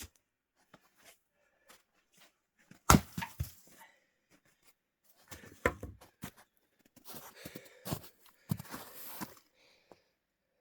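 Axe splitting firewood: a loud chop about three seconds in, another near the middle, then a run of knocks and wooden clatter near the end.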